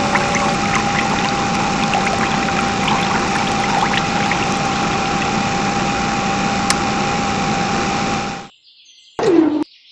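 Small electric motor water pump running with a steady whine while water pours and splashes. It cuts off suddenly about eight and a half seconds in, and a short falling tone sounds near the end.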